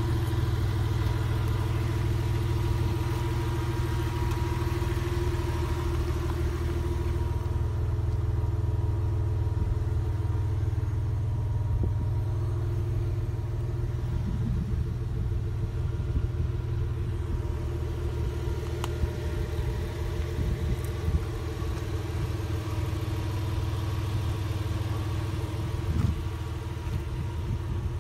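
1997 Porsche Boxster's 2.5-litre flat-six idling steadily, with an even low hum. There are a few faint knocks around the middle and near the end.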